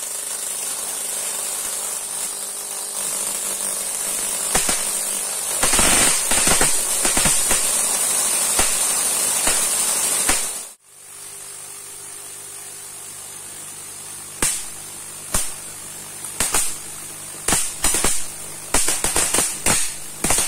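High-voltage sparks from a 250 kV voltage multiplier: a dense crackle of discharges over a steady hum and hiss, which cuts off abruptly about halfway. Then single sharp snaps, at first about a second apart and coming faster near the end.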